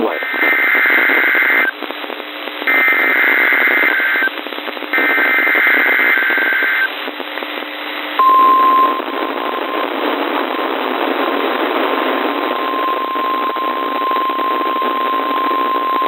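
NOAA Weather Radio SAME data header for a Required Weekly Test, received over FM radio: three bursts of warbling digital tones, each about a second and a half long with short gaps, over a steady hiss of radio static. About eight seconds in a steady single tone near 1 kHz starts, loud for under a second and then fainter.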